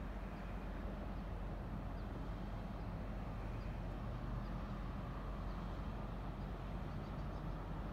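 A steady low drone from a large cargo ship's engines as the ship passes, unchanging in level.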